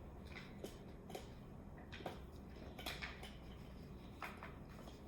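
Scattered light clicks and clatters of small hard objects being handled and set down, over a low steady hum.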